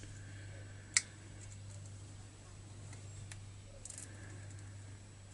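Small metallic clicks of needle-nose pliers working a chainsaw starter pawl's broken spring, bending it back into shape: one sharp click about a second in, then a few faint ticks, over a steady low hum.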